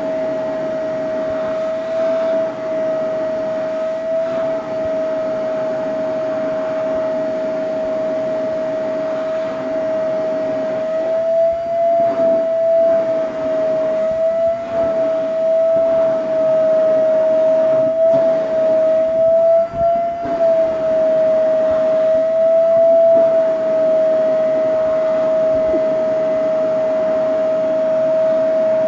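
Vacuum cleaner running with its hose nozzle drawn through a cat's fur: a loud, steady whine with airy suction hiss, wavering slightly in pitch and dipping briefly in loudness a few times.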